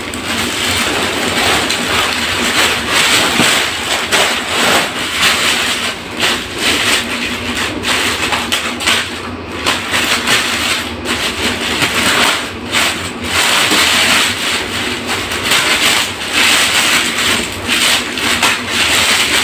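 Large plastic courier bag crinkling and rustling continuously as it is handled and pulled open by hand.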